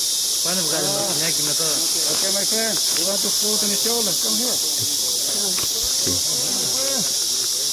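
Dense, steady, high-pitched chorus of rainforest insects such as cicadas and crickets, with low voices talking underneath.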